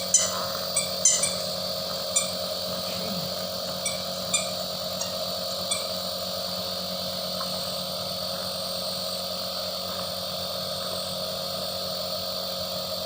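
A baby's jingling toy shaken several times, bright ringing jingles in the first six seconds, then it stops. A steady machine hum runs underneath.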